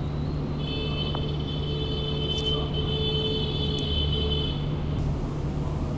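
A steady low hum runs throughout. A steady high whistle-like tone starts about half a second in, holds for about four seconds and then stops. A few faint clicks come from a steel knife against the metal skewer as chicken pieces are pushed off.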